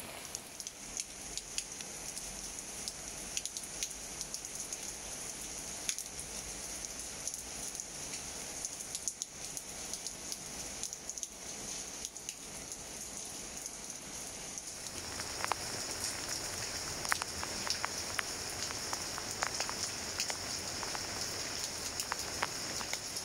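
Rain falling on leaves and plants: a steady hiss with many separate drops ticking, getting heavier about two-thirds of the way in.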